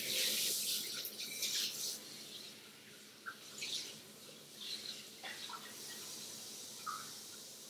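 Water running from a tap into a sink, strongest at first and easing off about two seconds in, with a few faint clinks and knocks afterwards.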